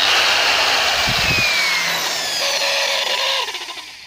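Angle grinder spinning a CD in place of its cutting disc, running loudly with a falling whine, then switched off about three and a half seconds in and winding down.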